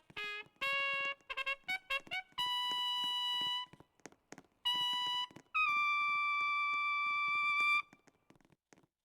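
Trumpet playing a quick run of short notes jumping around in pitch, then three long high held notes, the last one slightly higher, loudest and longest at about two seconds.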